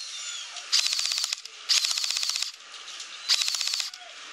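Tokyo Marui VZ61 Scorpion airsoft electric machine pistol firing three short full-auto bursts, each a rapid clatter of shots, at a rate of fire of about 16 rounds a second.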